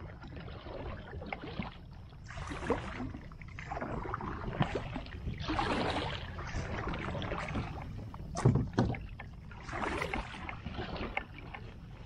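Water swishing and sloshing around a plastic fishing kayak in three or four swells a few seconds apart, with a few sharp knocks on the hull about two-thirds of the way through, over a steady low rumble.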